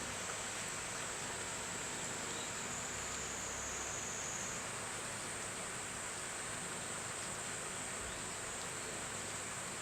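Insects droning steadily at a high pitch over a constant background hiss, with a slight change in the drone's pitch about halfway through.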